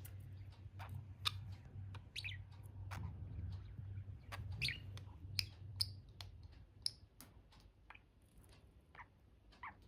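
Pet budgerigars chirping: a scatter of short, quick chirps and squeaky notes, with a low steady hum underneath that fades out after about six seconds.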